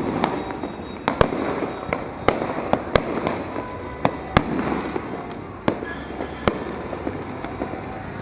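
Street fireworks and firecrackers going off around the neighbourhood: a dozen or so sharp bangs and pops at uneven intervals over a steady crackle of more distant fireworks.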